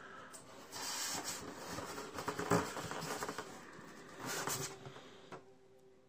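Styrofoam packing lid and cardboard shipping box rustling and scraping as the lid is handled and lifted off, in two spells: a longer one from about one to three and a half seconds and a short one near four and a half seconds.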